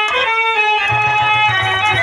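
Instrumental music from a birha folk ensemble striking up a new tune: sustained melodic notes, with a low held note joining about a second in.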